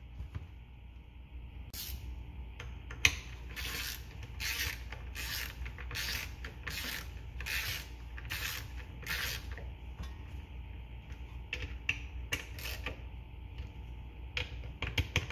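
Hand work on a 2 hp Johnson/Evinrude outboard's recoil starter: short scraping, clicking strokes on the metal housing and pulley in an uneven rhythm of one or two a second, with a few quicker clicks near the end.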